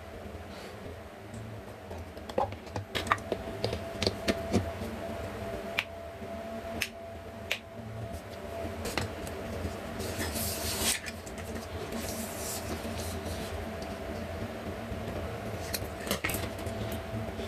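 Clicks and taps of small tools and parts being handled on a work mat, scattered through, over a steady low hum, with a brief rustling hiss about ten seconds in.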